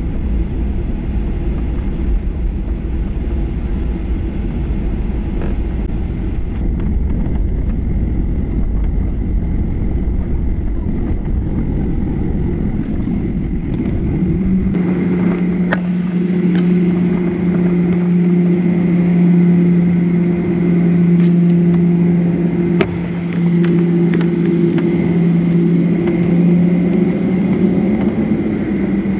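Cabin noise inside a Boeing 737-800 taxiing after landing: a steady, heavy rumble of its CFM56 engines and the airframe. About halfway through, the sound changes abruptly into a steadier hum with two clear low droning tones and a few sharp clicks, with the recording running at ten times speed.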